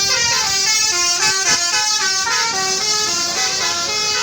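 Tourist bus 'telolet' musical horn playing a quick tune of short stepped notes.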